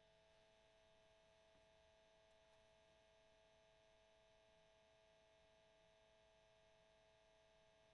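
Cassette tape motor running: a very faint, steady hum made of two held tones, with a light hiss behind it.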